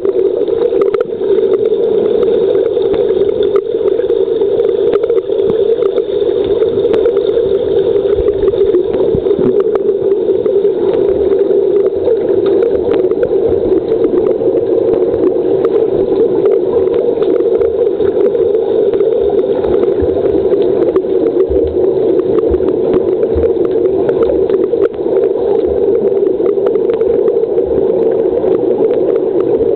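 Swimming-pool underwater sound picked up by a submerged camera: a loud, steady drone-like hum with hiss and scattered faint clicks, unchanging throughout.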